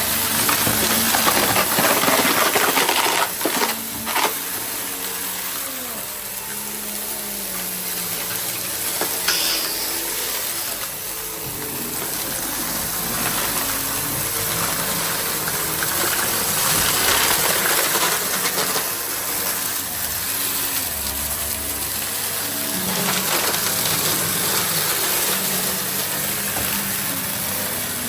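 Goodmans TurboMax vacuum cleaner running steadily, its motor whining, with rattles and a few sharp clicks from things being drawn through it.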